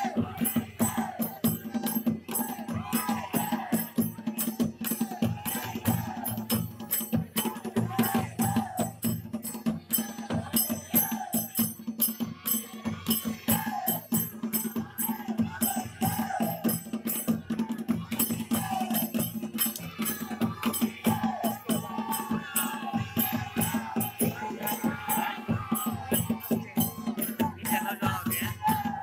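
Folk music for a circle dance: rapid, continuous drumming with rattling, jingling percussion and a wavering melody line above it.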